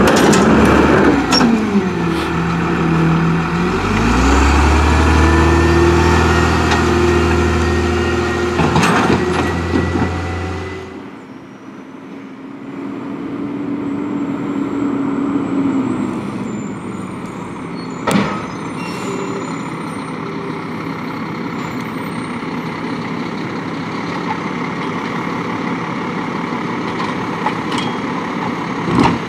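Rear-loading garbage truck close by, its diesel engine running loud, the revs dropping and climbing again as the hydraulic packer cycles, with a few sharp knocks of carts and metal. About eleven seconds in this gives way abruptly to a quieter, steady engine sound of a second garbage truck at a distance, with an occasional knock.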